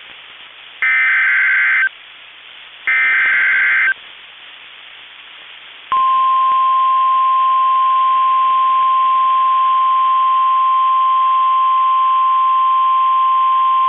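NOAA Weather Radio Emergency Alert System signal: two one-second squawks of SAME header data, the digital code that announces the alert, a second apart, then from about six seconds in the steady single-pitch 1050 Hz weather radio warning alarm tone, which signals that a warning message follows.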